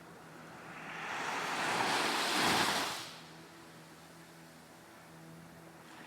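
A Caribbean Sea wave breaking on the beach: the surf swells over about two seconds, peaks, then falls away quickly into a low wash.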